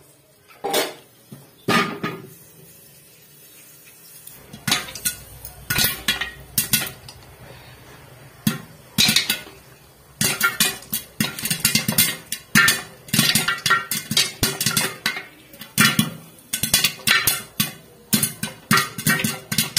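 Popcorn kernels popping inside a covered metal pot on the stove, the pops striking the pot and lid. A few single pops at first, then from about four seconds in they come faster and faster into a dense, irregular crackle.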